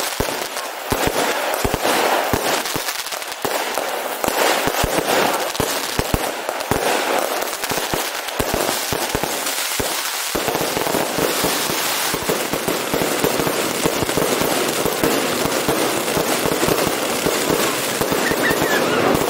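Fireworks display: a rapid run of bangs and crackles that thickens, about halfway through, into a dense, unbroken barrage of explosions.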